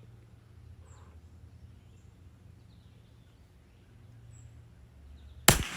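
A single sharp shot from a Savage Mark II .22 LR bolt-action rifle near the end, after several seconds of quiet with a few faint bird chirps.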